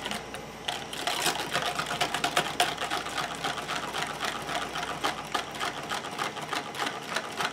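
Metal wire whisk beating liquid cold-process soap batter in a plastic measuring cup: a fast, uneven clicking and scraping of the wires against the cup, roughly three strokes a second, as the purple colour is whisked in.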